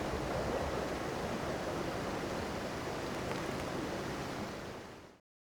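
Steady rushing noise with no clear pitch, fading and cutting off about five seconds in.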